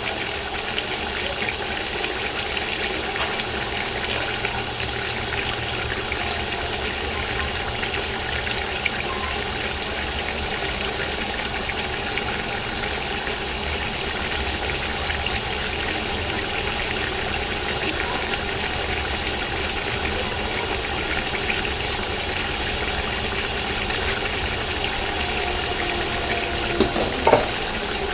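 Chicken pieces frying in hot ghee in a large pot: a steady sizzle with fine crackling. Near the end, a couple of short knocks.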